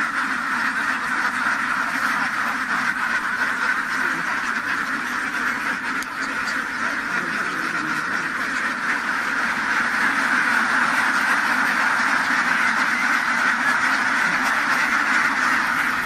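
A large flock of ducks quacking all at once: a dense, unbroken din of many birds that grows a little louder about ten seconds in.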